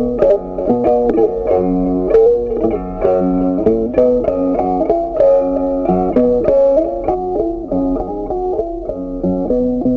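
Background music: a plucked guitar playing a light, picked melody with a steady beat.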